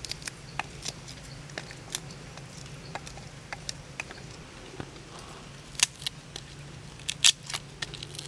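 Garlic cloves being peeled by hand over a wooden mortar: irregular crackling and clicking of the dry papery skins, with a few sharper, louder clicks in the second half as peeled cloves drop into the mortar.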